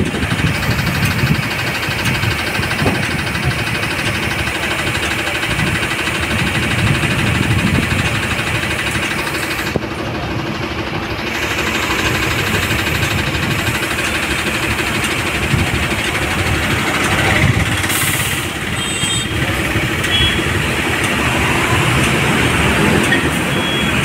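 A lorry's engine idling steadily with a low, even rumble.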